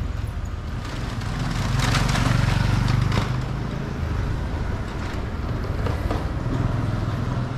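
A motor vehicle's engine hum and tyre noise in the street, growing louder to a peak about two to three seconds in and then easing off as it passes.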